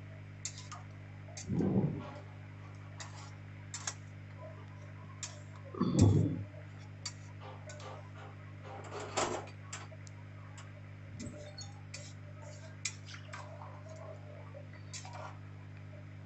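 Metal ladle stirring rice, vegetables and water in an aluminium pressure cooker: irregular clinks and taps of the ladle against the pot, with a few louder sloshing scrapes about 2, 6 and 9 seconds in.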